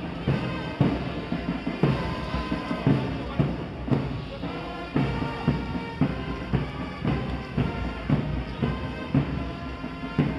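Kpanlogo drumming: hand drums and sharp wood-like percussion playing a steady interlocking rhythm, with accented strokes about twice a second.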